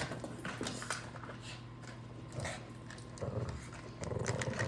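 A puppy playing roughly: scattered sharp clicks, then short low growls about three seconds in and again near the end.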